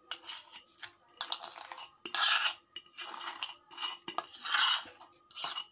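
Metal utensil scraping mashed sweet potato off a plate into a glass bowl: a series of short scrapes, each about half a second, with a few sharp clinks of metal on the dishes.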